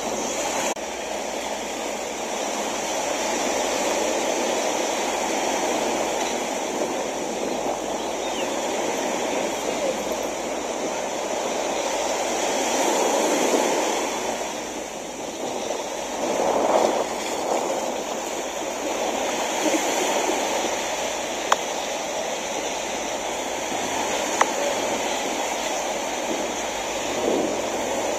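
Small waves washing onto a sandy beach: a steady rushing that swells twice around the middle, with two short sharp clicks in the later part.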